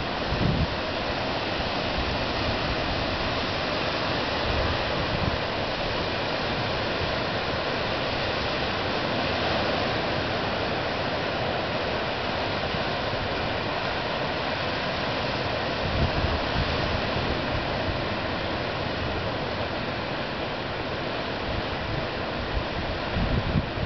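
Ocean surf breaking on the shore, a steady rushing, with wind buffeting the microphone in a few short gusts.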